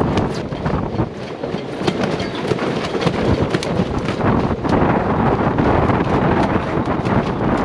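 Gale-force wind buffeting the microphone, with a loose jib flogging and cracking in sharp snaps through the first half; after that the wind noise is steady and denser.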